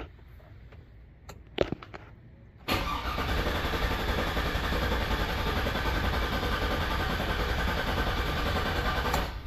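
Starter cranking the 2002 Chevy 1500's V8 engine without it catching, for about seven seconds from about three seconds in, then cutting off abruptly. This is the crank for a relative compression test, which shows even compression on all eight cylinders.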